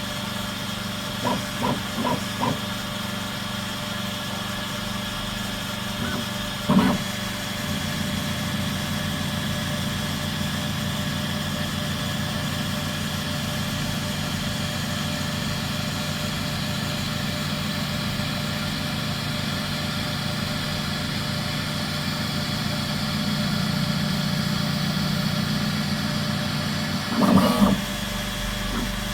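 Bambu Lab X1 Carbon 3D printer running its automatic pre-print routine: a steady whir of fans, with a few short clicks near the start and a knock about seven seconds in. After the knock a steady, rhythmic motor buzz runs until a brief clatter near the end.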